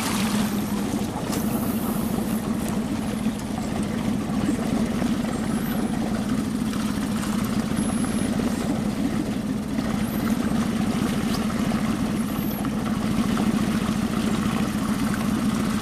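Small Suzuki outboard motor running steadily, a constant low hum with fast, even firing pulses.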